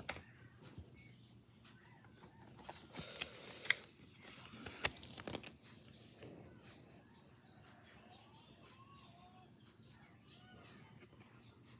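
Rigid plastic card toploader being handled as a trading card slides out: a few sharp clicks and scraping, loudest between about three and five seconds in. Faint bird chirps follow in the background.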